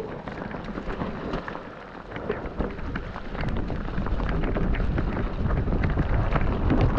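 Mountain bike descending a wet, muddy trail, heard from a camera on the bike or rider: a steady rumble of wind on the microphone and tyres over the mud, with many small clicks and knocks from the bike and trail. The rumble grows louder about halfway through as the bike picks up speed.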